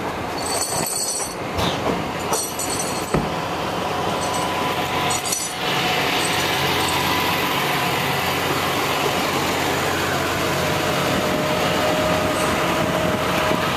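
Truck engine idling steadily, with sharp metallic clanks, rattles and squeaks during the first five seconds or so.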